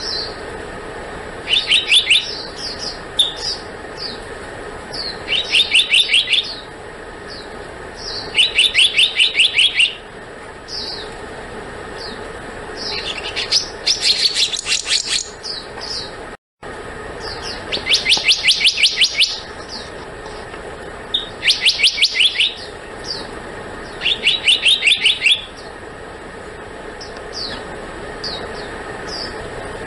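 Black-naped monarch singing: bursts of rapid, evenly spaced high notes, each burst lasting a second or two and repeated every few seconds, with single short call notes between the bursts.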